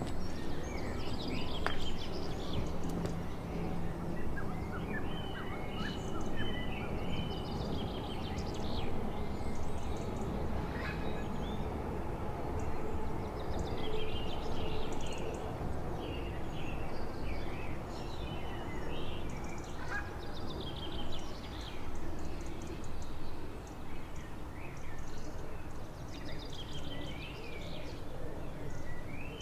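Several birds chirping and trilling over a steady low outdoor background hum.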